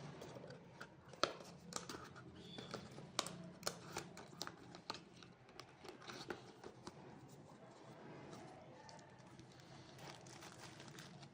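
Packaging being handled and opened: crinkling and tearing with a scatter of sharp clicks, thinning out about seven seconds in.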